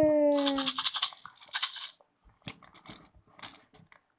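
Toy gumball machine's plastic knob being turned, with two short rattling, crunching bursts of the mechanism and gumballs inside, then a few light clicks; no gumball drops out. A child's long falling vocal sound trails off at the start.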